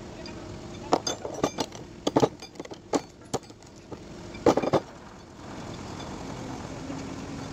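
Steel anchor bolts clinking and knocking against each other as they are picked up and gathered by hand, a run of sharp clinks with the loudest about four and a half seconds in. After that a steady hum carries on in the background.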